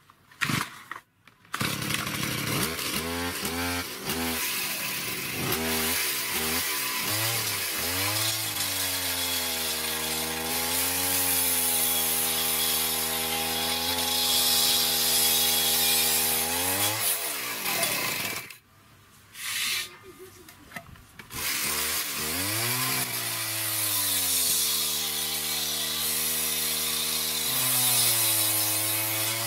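Two-stroke chainsaw engine, converted to drive an abrasive cut-off disc by belt, revving up and holding at high speed while the disc grinds through steel tubing, with a high grinding hiss over the engine. The engine drops back about two-thirds of the way in, then revs up again for a second cut and falls off near the end.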